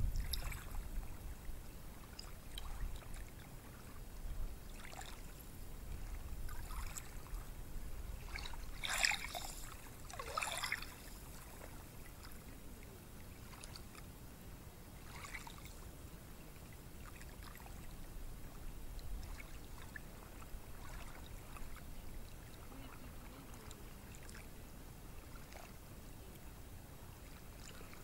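Small ocean waves washing onto a beach: a steady low rumble of surf with short splashy hisses, two louder splashes about a third of the way in.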